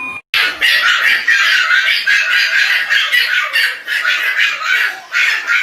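A bird squawking and screeching in a rapid, unbroken run that starts abruptly just after the start.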